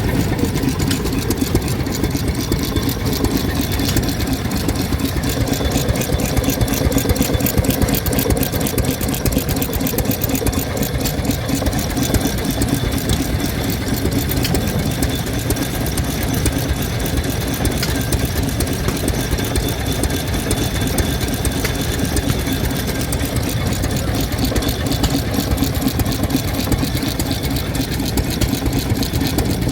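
Vintage stationary engine running steadily with a rapid, even firing beat.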